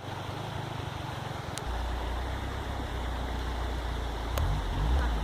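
Off-road car engine running with a steady low rumble that rises in pitch about four and a half seconds in, with two short clicks.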